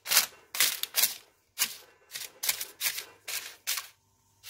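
Non-stick baking paper crinkling in a run of short rustles, about two a second, as a gloved hand presses it down into a stainless steel pot.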